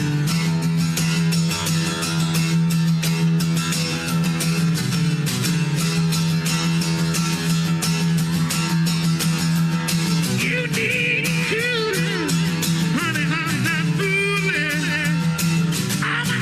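Beatboxer imitating a rock electric guitar with his mouth: a steady low buzzing drone under fast percussive beats. About ten seconds in, wavering, bending high lead-guitar lines come in over it.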